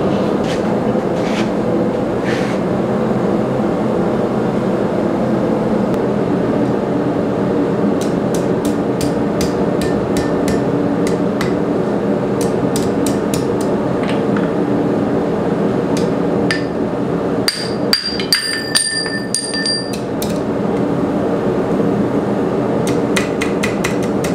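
Hand hammer striking a glowing quarter-inch round steel bar on an anvil to bend it, in runs of blows about 8, 16 and 23 seconds in, some leaving a ringing note. A steady loud noise runs underneath the whole time.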